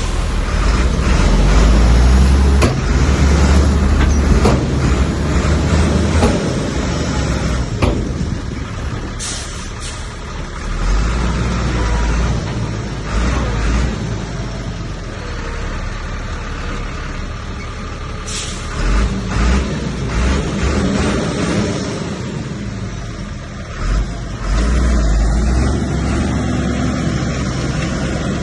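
Heavy diesel earthmoving machinery at work, bulldozer and dump trucks, with deep engine sound that swells and eases several times under load. A few sharp noises stand out: near the start, about nine seconds in and about eighteen seconds in.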